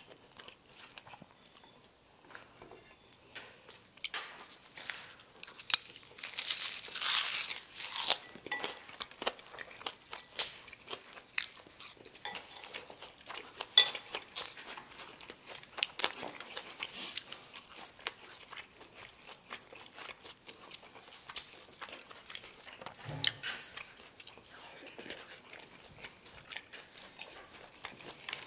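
Close-miked eating: a crisp roasted seaweed (gim) wrap is bitten and chewed with loud crackling crunches, densest about six to eight seconds in, followed by quieter chewing with scattered small clicks.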